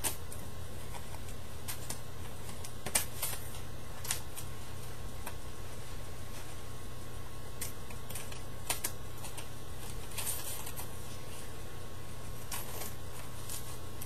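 Scissors cutting through folded paper: scattered sharp snips with short paper rustles, a few seconds apart, over a steady low hum.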